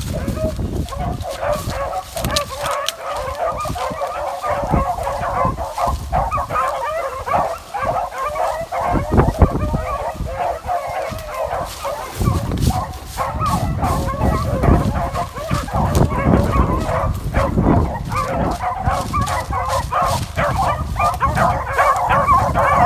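A pack of beagles baying continuously, many hounds calling over one another as they run, growing louder from about halfway through. A low rumble sits under the hound voices.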